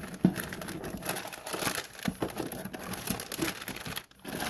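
Lure packaging crinkling and rustling in irregular bursts as hands rummage through the box of tackle, with small clicks and a short lull near the end.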